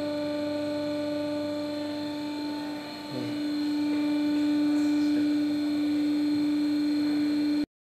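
Hydraulic power unit's motor-driven pump running with a steady hum, holding the press cylinder at the raised pressure of about 20 bar to press the bearing. The hum sags briefly about three seconds in, runs a little louder after, and cuts off abruptly near the end.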